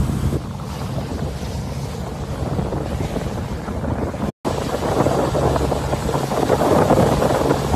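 Motorboat under way: the engine runs with a steady low hum, under wind buffeting the microphone and rushing water. The sound drops out for an instant a little past four seconds in, then comes back louder.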